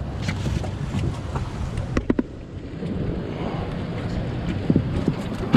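Wind on the microphone and water noise around a boat, a steady low rumble, with a few sharp knocks about two seconds in.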